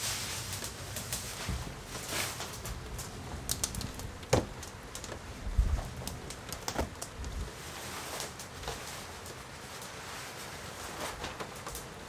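Someone moving about and handling clothing, with rustling, scattered clicks and knocks, a sharp knock about four seconds in and a dull thump shortly after.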